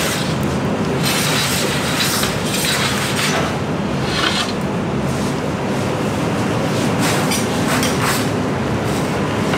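Metal pizza peel scraping and rubbing on the floor of a wood-fired oven as the pizza is turned and drawn out, in short irregular rasps over a steady rushing noise.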